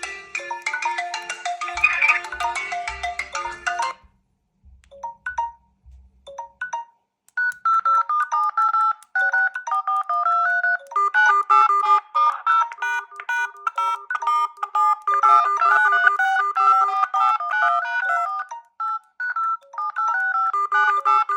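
Smartphone ringtones playing as short repeating electronic melodies. One busy tune stops about four seconds in, and a few stray notes follow over a low pulsing buzz. From about seven seconds another ringtone tune repeats, growing fuller from about eleven seconds as more notes join.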